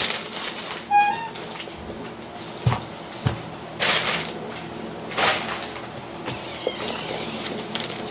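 Plastic mailer and wrapping crinkling and rustling in bursts as a parcel is unwrapped, with a couple of dull knocks of a cardboard box being handled. A brief high squeak about a second in.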